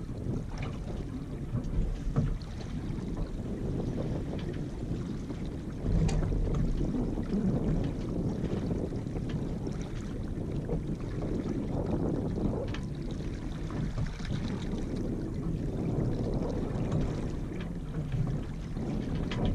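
Wind buffeting the microphone over water washing along the hull of a Yamaha 24 sailboat ghosting along in light air. The rumble swells about six seconds in, and a few faint clicks come through.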